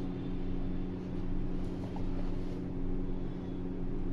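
A steady low machine hum with an even hiss behind it, unchanging throughout.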